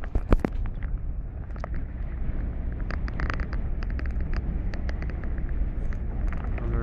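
Boat engine running with a steady low drone, with scattered small knocks and clicks on top.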